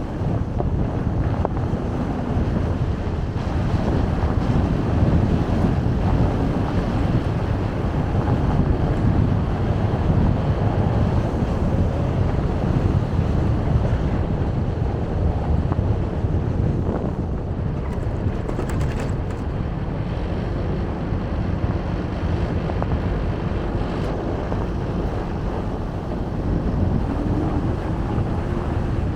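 Car driving on an unpaved road: a steady rumble of tyre and engine noise with wind buffeting the microphone.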